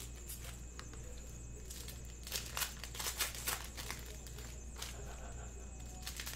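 Foil wrapper of a Panini Mosaic soccer card pack crinkling as it is torn open by hand and the cards are slid out, in short scattered crackles and clicks.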